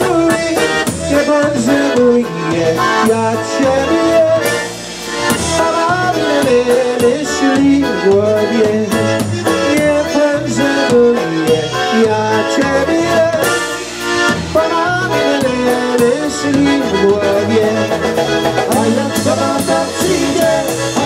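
Live polka band playing, led by accordion over a drum kit, with a man singing into the microphone.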